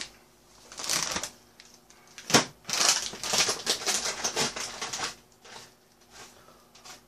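Plastic wet-wipe packet crinkling and rustling in bursts as wipes are pulled out, with one sharp click about two and a half seconds in.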